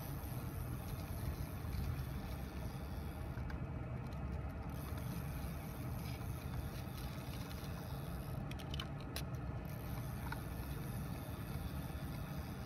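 Steady low outdoor rumble, with a few faint ticks a little past the middle.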